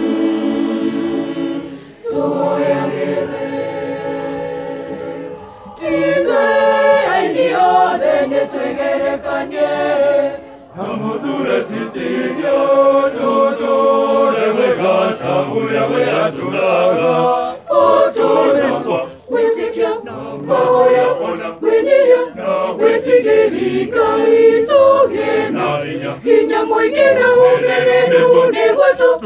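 Mixed choir of men and women singing together, stopping briefly a few times in the first ten seconds.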